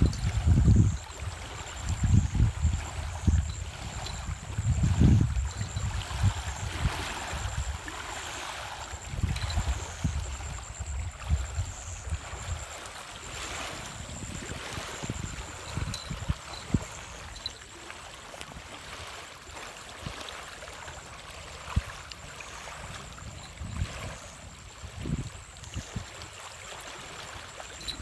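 Small waves of lake water lapping on a stony shore, with loud, uneven low rumbles during roughly the first twelve seconds.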